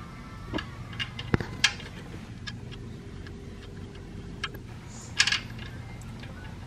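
Scattered light metallic clicks and clinks of a socket and hand tools being handled under a car during an oil change, with a sharp knock about a second and a half in and a short cluster of clatter about five seconds in, over a steady low hum.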